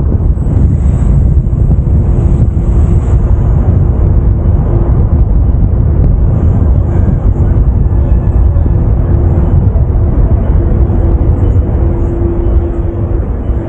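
Car driving along a road, heard from the car itself: loud, steady low wind and road noise, with a faint steady hum that comes and goes in the second half.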